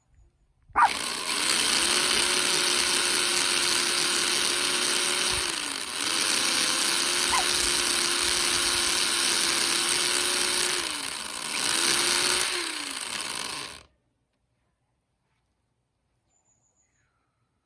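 Electric drill boring into a log with a wood bit, its motor running steadily and sagging in pitch under load twice before it stops.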